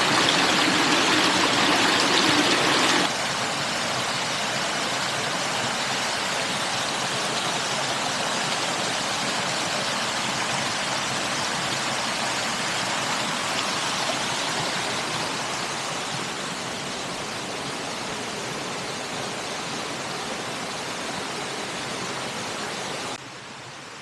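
Steady rushing noise of flowing water. It drops abruptly in level about three seconds in and again near the end.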